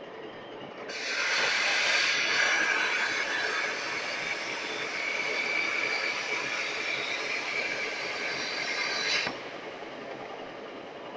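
Plasma cutting torch firing and cutting, a loud steady hiss that starts about a second in, runs about eight seconds and stops abruptly when the arc is shut off.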